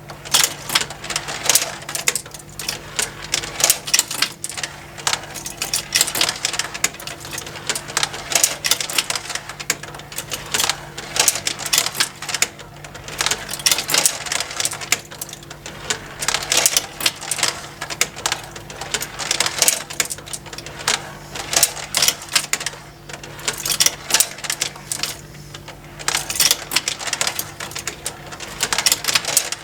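Motorised plastic marble run toy: glass marbles clicking and clattering as they roll and drop along plastic tracks and are carried up by plastic conveyor lifts, over the faint steady hum of the small motor. The clicks come thick and irregular, in busier and sparser spells.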